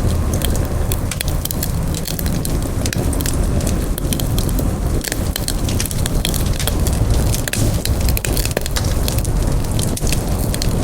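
Wood campfire crackling, with many quick sharp pops and snaps over a steady low rumble of burning.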